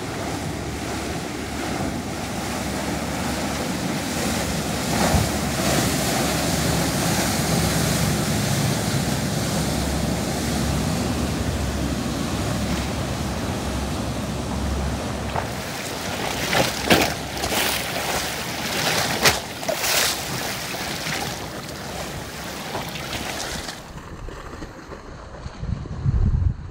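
Rushing, choppy water from a motor yacht's wake as it runs past, with wind buffeting the microphone and a few sharp gusts about two-thirds of the way in. Near the end the sound drops abruptly to a quieter, calmer scene.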